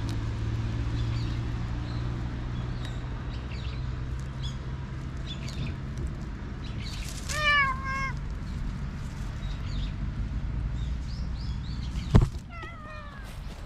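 A black cat purring steadily close to the microphone while its head is stroked. About seven and a half seconds in it gives a short meow broken into a few falling notes, and near the end a sharp knock is followed by another short meow.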